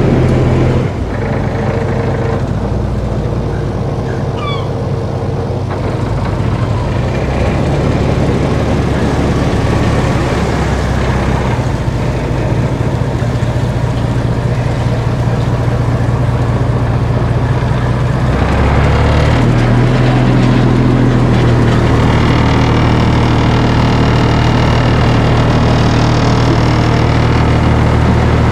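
Fishing boat's engine running steadily under way, its low note shifting about 19 seconds in.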